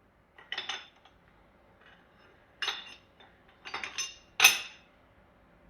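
Metal parts and tools clinking against each other and on a hard surface in a workshop: four or five short, ringing clinks, the loudest near the end.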